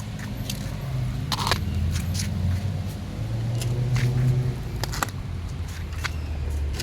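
A low, steady motor hum that swells twice, with a few sharp clicks scattered through it.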